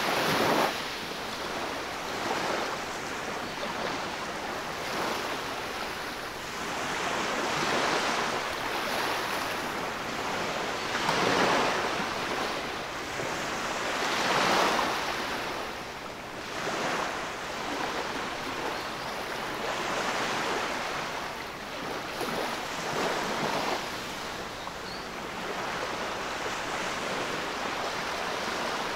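Small waves breaking and washing foam up over a sandy beach, a steady hiss of swash that swells every few seconds as each wave runs in.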